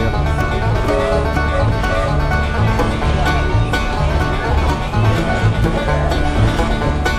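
Background music: upbeat banjo-led bluegrass with a steady beat.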